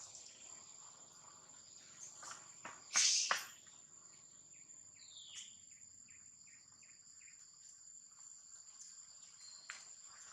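Insects shrilling steadily at a high pitch in forest ambience. About three seconds in comes a short, loud, rasping burst, and a little later a quick run of about six short chirps.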